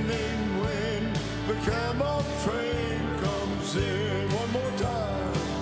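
Live country-gospel band music: piano and a stepping bass line under a wavering lead melody.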